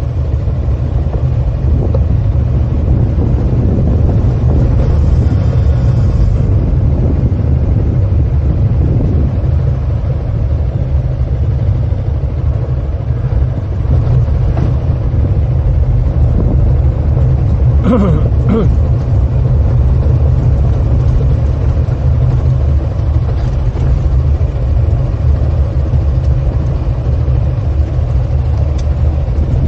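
Yamaha XMAX 300 scooter under way: a steady low rumble of wind buffeting the camera microphone over its single-cylinder engine running.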